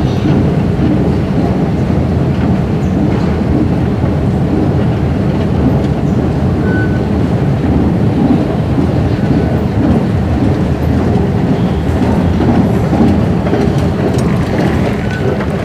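Steady, loud, low rumble in an underground metro station, with a few short high beeps.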